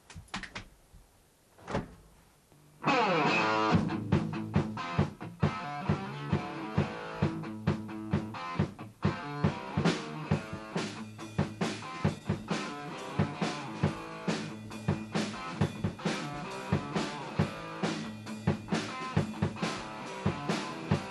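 Rock music with guitar and a steady drum beat, starting suddenly about three seconds in after a few faint knocks.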